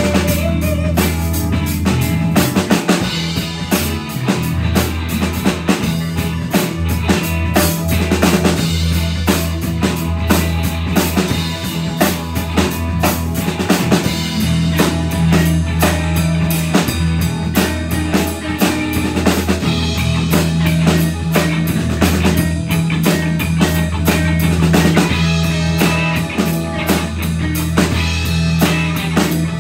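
Live band playing: a drum kit keeps a busy beat over electric bass, electric guitar and keyboard.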